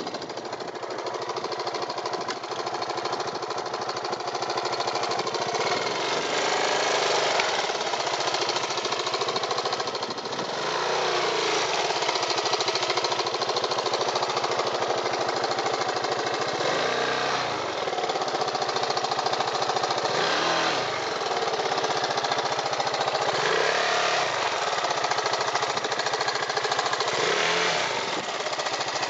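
Motorcycle engine idling with a rapid beat, the throttle blipped about six times so that the pitch rises and falls back.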